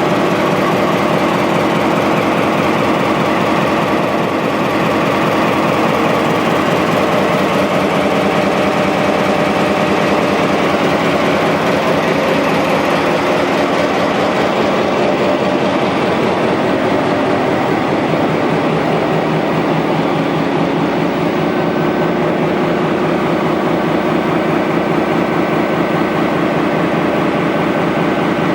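Diesel engine of GMD locomotive 6540 running steadily with an even, pulsing beat.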